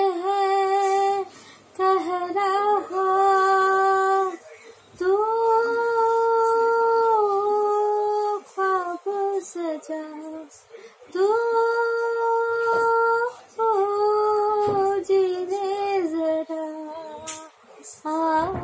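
A woman singing solo without accompaniment, a slow melody with short phrases and two long held notes.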